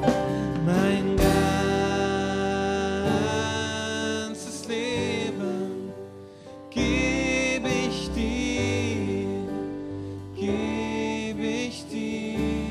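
Slow worship song played live on keyboard and acoustic guitar, with a man singing long held notes with vibrato; a new phrase starts about seven seconds in.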